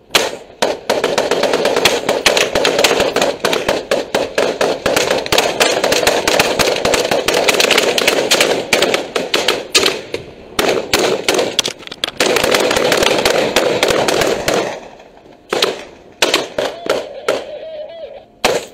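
Rapid rifle fire at close range, shots following one another almost without pause for about fifteen seconds, broken twice briefly, then thinning to a handful of scattered single shots near the end.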